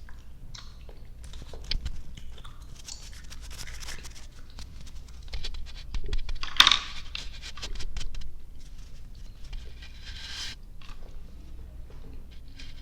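Close-miked ASMR chewing of soft, sticky gummy and marshmallow candy: wet mouth clicks and smacks, with a few louder short noisy bursts, the loudest about halfway through.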